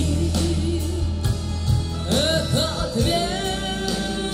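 Live band performance: a woman singing lead into a microphone with her pitch wavering in vibrato, joined by female backing vocals, over steady bass and a regular beat.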